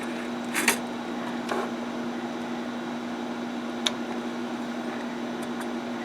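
A hand rivet gun being fitted over a pop rivet: a short rattle just under a second in, a smaller one soon after, and a sharp click about four seconds in. A steady hum runs underneath.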